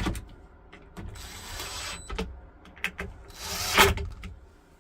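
Cabinet door and latch hardware being fitted: scattered clicks, a short rasping mechanical run about a second in, and a louder rasp near the end that finishes in a sharp knock.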